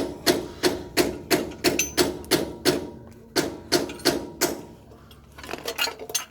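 Hammer blows on metal, about three a second, knocking the worn front wheel bearing out of the steering knuckle. There is a brief pause about three seconds in, and lighter, quicker taps near the end.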